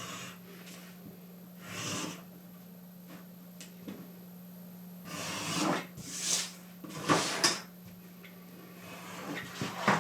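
Knife blade slicing through glued leather to trim off the excess: several short cutting strokes, about two seconds in and again between five and seven and a half seconds, over a faint steady low hum.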